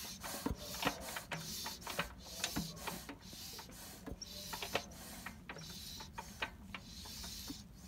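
Lister CS single-cylinder stationary diesel engine turning over slowly, a regular mechanical clicking about twice a second that grows fainter toward the end.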